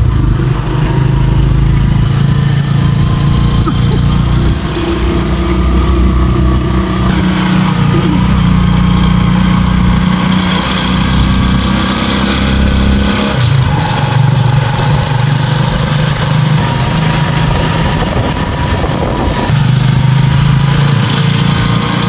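Motorcycle engine running while riding along, with its note dipping briefly about halfway through and then picking up again.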